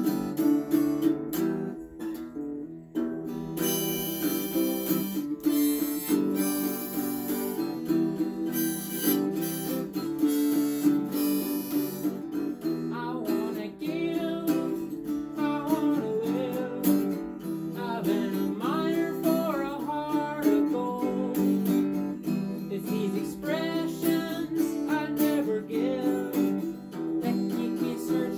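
Acoustic guitar strummed steadily, with a harmonica played from a neck holder coming in with a wavering melody over the chords about halfway through.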